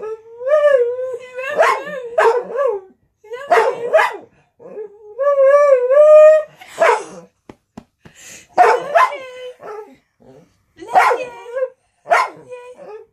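Staffordshire bull terrier howl-talking: several bouts of drawn-out, wavering moans mixed with short sharp yips, with brief pauses between bouts, mimicking 'I love you'.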